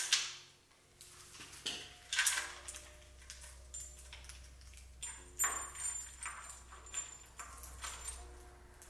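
Several sharp metallic clinks and rattles of steel timing sprockets and chain being handled and fitted by hand on an Audi TT engine's front timing drive, with soft background music.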